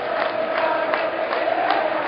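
Many voices holding long, drawn-out notes together, with a few sharp clicks.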